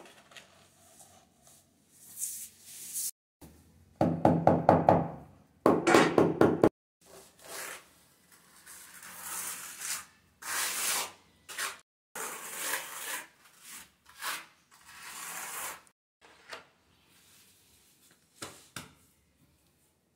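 A notched steel trowel scraping and combing tile adhesive across a wall in repeated strokes, each a rasping swish. About four seconds in come two short runs of rapid knocking, the loudest sound here.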